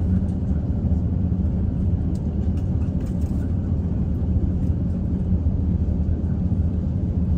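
Airbus A350-900 taxiing, heard from inside the cabin: a steady low rumble from the engines at taxi power and the wheels rolling on the taxiway. A few light cabin rattles come about two to three and a half seconds in.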